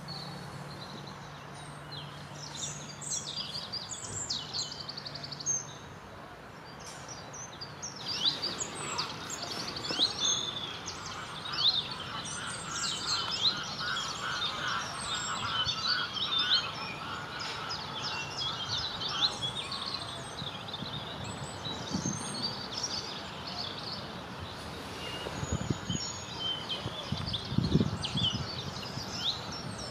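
Small songbirds singing and chirping in a busy chorus, with many short high calls and trills overlapping. A low steady hum is under the first five seconds or so, and a few low thumps come near the end.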